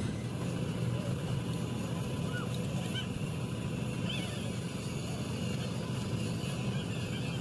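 A steady low mechanical drone, like an engine or motor running evenly, with a few faint high chirps above it.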